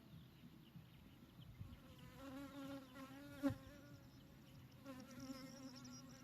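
Honeybees buzzing faintly as they fly past, a wavering hum that swells twice, about two seconds in and again about five seconds in. A single sharp tap is heard midway through.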